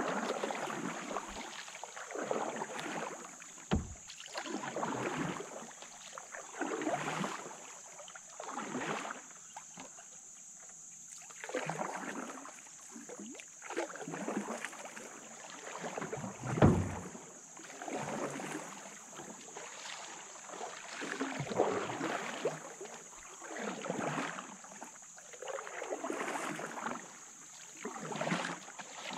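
Canoe paddle strokes: the paddle swishes through the water about every two seconds. There are a couple of dull knocks, the loudest just past the middle.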